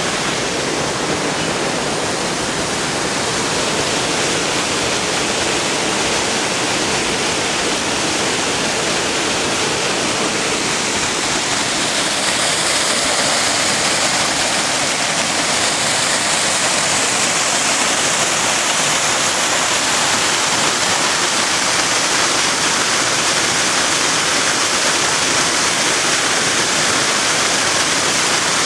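Steady rush of fast-flowing water from a swollen, muddy river and close white water churning in a channel. It grows slightly louder and hissier about twelve seconds in.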